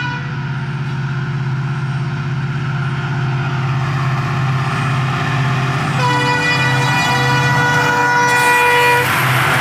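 EMD WDG4D diesel-electric locomotive, with its 16-cylinder two-stroke engine, running steadily as it approaches. About six seconds in it sounds one long horn blast of about three seconds, and near the end a loud rushing noise builds as it passes close by.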